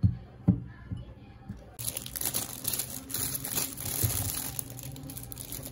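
Two knocks as an egg tart in its foil cup is set down in a ceramic bowl, then steady crinkling of a clear plastic bag being handled around a pastry.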